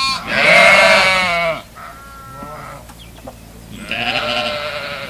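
Sheep bleating: a few separate quavering bleats, the loudest one near the start.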